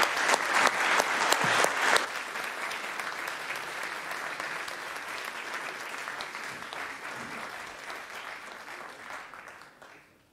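Applause from a small group of people clapping: loud for about two seconds, then dropping off sharply and thinning out, fading gradually to nothing near the end.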